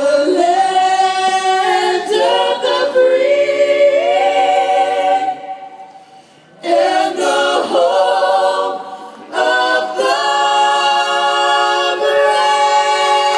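A group of voices singing sustained chords in harmony without instruments, a cappella, in three phrases separated by short breaks.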